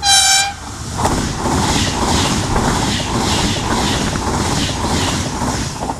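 Frecciargento high-speed train sounding one short horn blast as it comes in, then passing close at speed, the rush of air and wheels on rail beating about twice a second, cutting off as the last car goes by.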